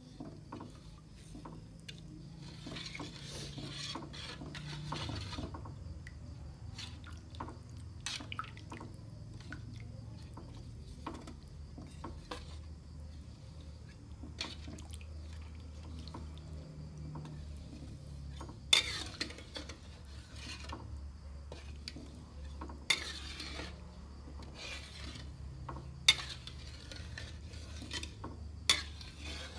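Metal spatula stirring coconut-milk curry in a large metal wok, scraping through the sauce and across the pan, with four sharp clinks of metal on metal in the second half. A low steady hum runs underneath.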